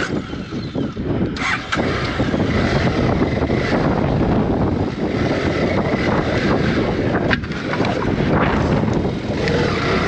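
BMW F650GS motorcycle running under way on a rough dirt track, heard steadily through wind on the helmet or bike camera microphone.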